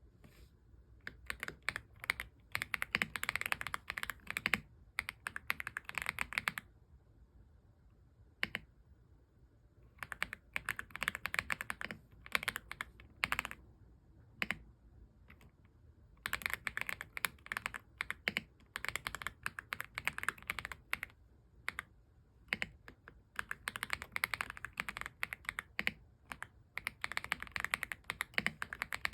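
AULA F75 mechanical keyboard being typed on fast, in bursts of rapid keystrokes several seconds long, broken by short pauses.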